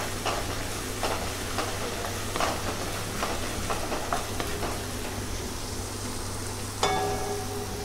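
Garlic paste frying in ghee with a soft, steady sizzle in an aluminium kadhai, stirred and scraped now and then with a plastic spatula, to cook out the garlic's raw taste. A short ringing knock near the end.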